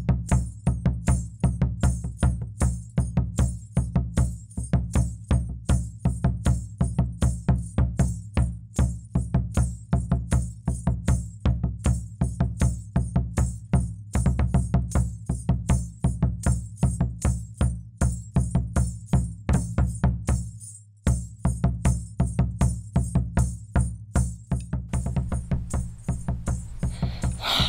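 Fast percussive background music with a driving beat of about four to five hits a second. It cuts out briefly about twenty-one seconds in, then resumes.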